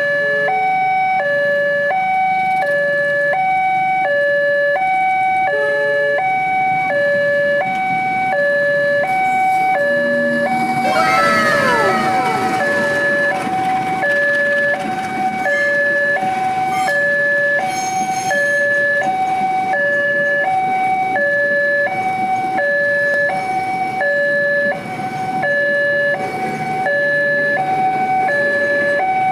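Electronic two-tone warning signal of a railway level crossing, switching between a lower and a higher tone about every half second. About eleven seconds in, a passing locomotive's horn sounds with its pitch falling as it goes by, and the train's running rumble carries on under the alarm.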